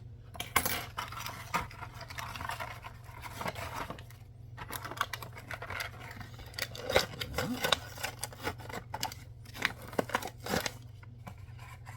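Cardboard toy box being torn open by hand, with irregular ripping, crinkling and sharp snaps, and a short pause about four seconds in.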